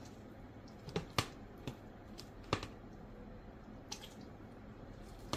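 Pieces of seared beef chuck roast being forked out of a plastic container and dropped into a pressure cooker of broth: a handful of short, wet plops and clicks at irregular spacing.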